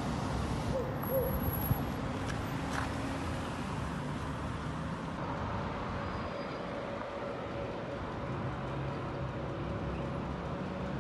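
Street background noise: a steady low hum, with a sharp click about two seconds in and a thin steady tone joining from about five seconds in.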